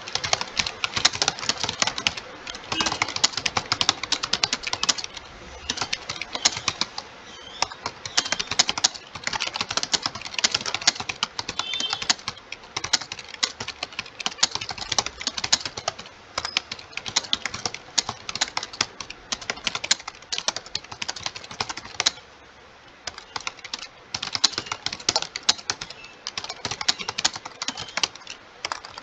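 Fast, continuous typing on a computer keyboard, the keys clicking in quick runs with brief pauses between them.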